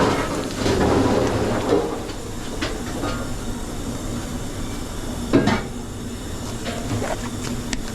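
Commercial kitchen noise: a steady mechanical hum with clatter of dishes and utensils, and one sharp knock about five and a half seconds in.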